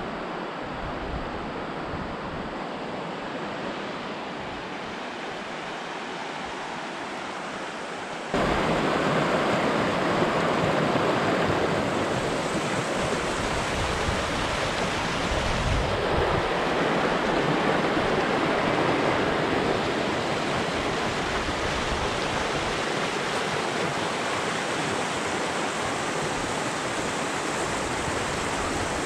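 Steady rush of a shallow mountain river running fast over stones. It is quieter at first, then jumps suddenly louder about eight seconds in and stays loud.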